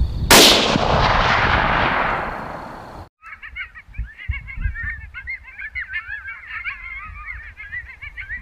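A single rifle shot about a third of a second in, its report rolling away over about two and a half seconds. Then, after a sudden cut, a dense chorus of many short, overlapping animal calls.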